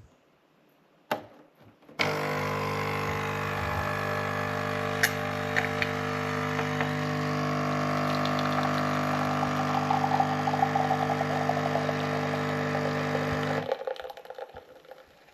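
Dolce Gusto capsule coffee machine's pump running as it brews a drink: after a click, a steady buzz starts about two seconds in, with liquid sputtering through it. It cuts off shortly before the end, leaving a few faint ticks.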